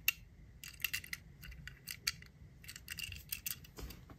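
Faint, irregular light clicks and taps of small toys being handled.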